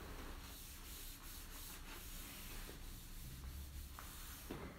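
Faint rubbing of a damp cloth over self-adhesive vinyl contact paper, in repeated strokes, smoothing the film down onto a plywood panel to press out air gaps.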